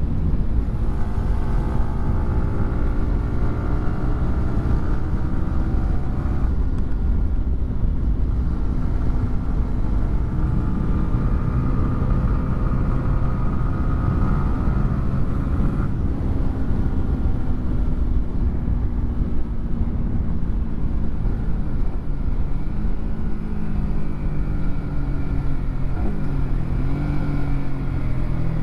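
Yamaha R15's 155 cc single-cylinder engine through a WRX GP3 exhaust, accelerating through the gears. The pitch climbs, then drops sharply at a quick upshift about six seconds in and again around sixteen seconds. It then runs lower, dipping and rising a few times near the end, over a steady low rumble of wind and road.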